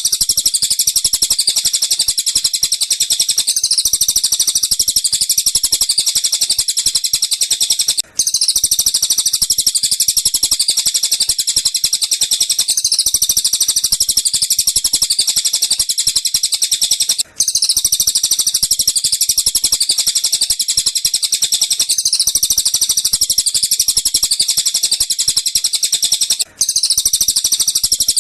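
Masteran bird-song track of tengkek buto and cililin calls: dense, very rapid high-pitched chirping with no pause, looped so that it repeats about every nine seconds, each time after a brief break in the sound.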